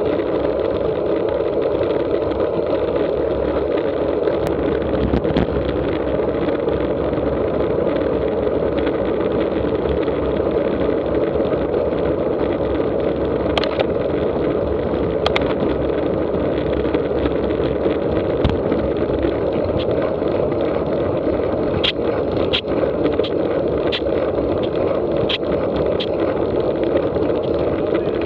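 Steady rush of wind over a road bike's handlebar-mounted camera at speed, mixed with tyre hum on asphalt. A few sharp clicks and knocks come in the second half.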